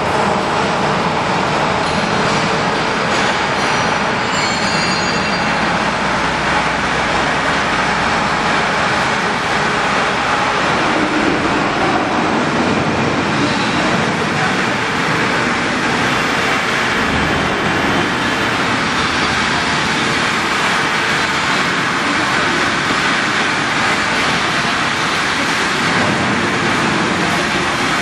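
Steady, loud rushing machinery noise from a CNC plasma beam-cutting robot at work, an even hiss and rumble that does not pause.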